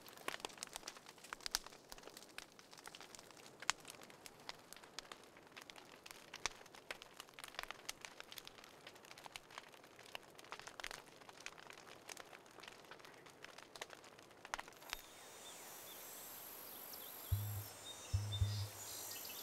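Faint, irregular crackling: scattered sharp clicks and pops. About three-quarters of the way through, a steady high hiss comes in, and near the end deep bass thumps of music begin.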